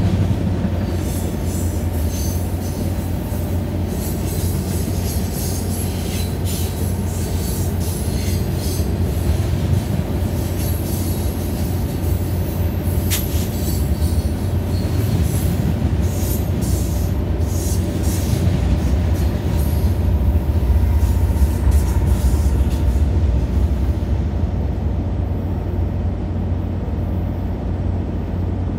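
A BNSF freight train passing on the next track, its wheels squealing and clattering on and off, over the steady low rumble of an idling Amtrak passenger locomotive close by. The freight noise stops near the end, leaving the locomotive's rumble.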